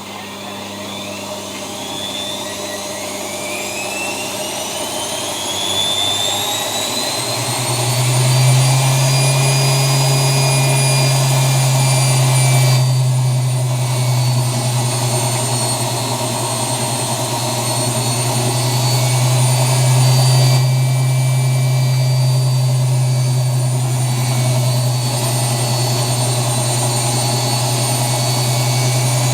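ELIN WA 14 M washing machine's motor and drum spinning up to spin speed: a whine rises in pitch and loudness over the first several seconds, then holds steady with a loud, steady hum for the rest.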